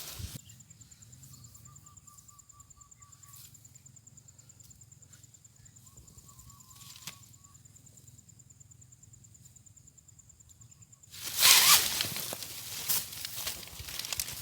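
An insect trills steadily and high-pitched over a quiet rural background. About eleven seconds in, a loud rustling noise breaks in and keeps going.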